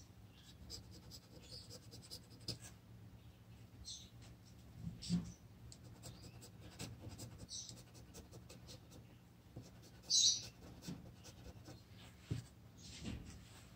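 Scratching the latex coating off a paper scratch lottery ticket: faint, irregular scraping strokes, with a brief louder hiss about ten seconds in.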